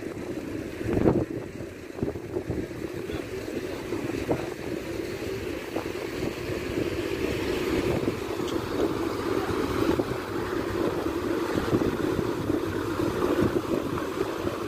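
Passenger fast boat's engines running as it gets under way, with water churning behind it and wind on the microphone; the sound grows louder from about six seconds in. A single thump about a second in.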